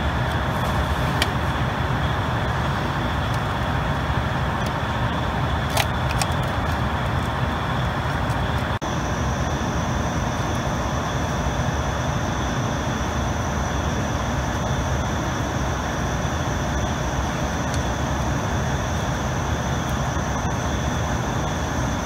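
Steady fan-like machine noise with a faint high whine. A second, higher whine joins about nine seconds in, and there are a few light clicks.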